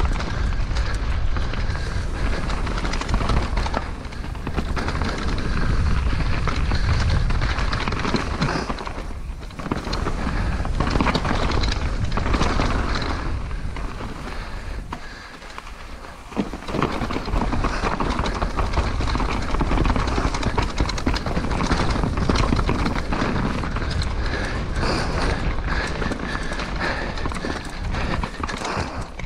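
Mountain bike descending a downhill trail, heard from a helmet-mounted action camera: a steady rush of wind buffeting on the microphone and tyre noise on dirt and leaves. It eases off briefly twice, about nine seconds in and again around fifteen seconds in.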